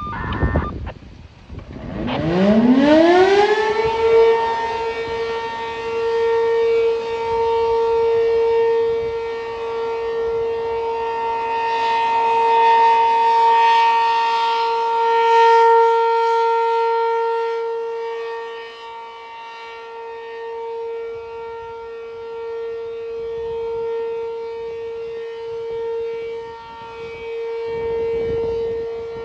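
P-15 outdoor warning siren winding up from a low growl and settling within about two seconds into a steady single-tone wail: the Alert signal during a siren test. The loudness swells and fades slowly while the pitch holds. A brief thump comes just before it starts.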